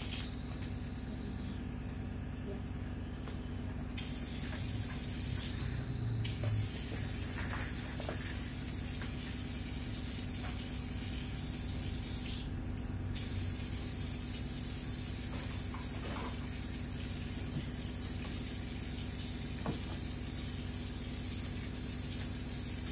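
Steady, even background hiss, with a few faint brief sounds here and there.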